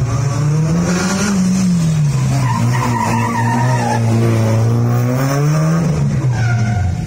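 Honda Civic EG hatchback engine revving hard as the car is driven through a cone slalom: the engine pitch climbs about a second in, falls back, then climbs again near the end. The tyres squeal in the turns.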